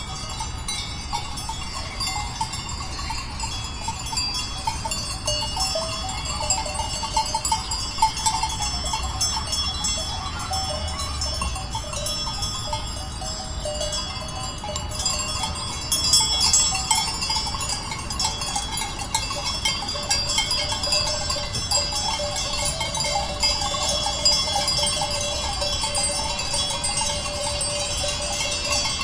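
Flock of sheep in a field: a busy, continuous soundscape of many short high notes over a steady background.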